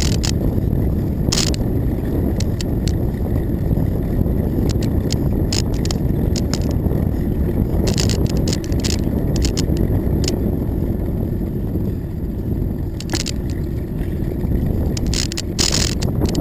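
Wind rushing over the microphone of a camera riding on a moving bicycle, with scattered clicks and rattles from the bike jolting over bumps in the pavement.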